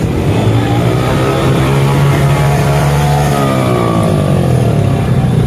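Engines of motorcycles and other vehicles running as they pass slowly in a line of traffic. One engine's pitch rises and then falls through the middle.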